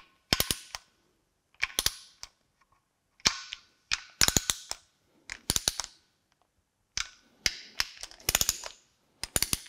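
Click-type torque wrench ratcheting and clicking as timing cover bolts are tightened to torque: about eight short bursts of sharp metallic clicks, each followed by a short pause.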